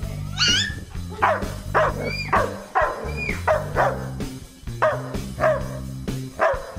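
German Shepherd barking repeatedly, short sharp barks about twice a second, over background music. A high wavering squeal comes about half a second in.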